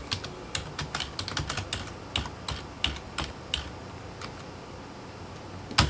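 Computer keyboard typing: a quick, uneven run of key clicks for about three and a half seconds, then a pause and one louder single click near the end.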